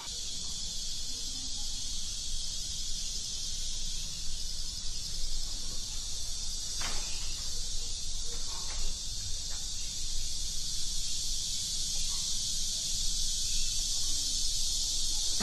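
Steady high insect chorus, like crickets, with a few faint soft knocks a little past the middle.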